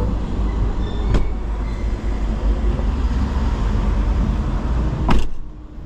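Steady low rumble of traffic through an open car door, then the 2023 Daihatsu Xenia's door slamming shut about five seconds in, after which the outside sound is muffled.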